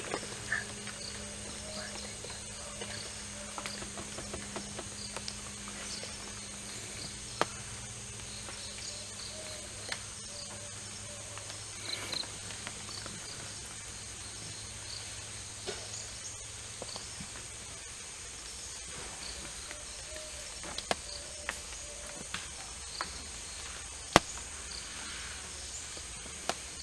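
Steady high-pitched drone of forest insects, with scattered snaps and rustles from wild Asian elephants tearing at undergrowth and one sharp crack near the end. A low steady hum underneath fades out about two-thirds of the way through.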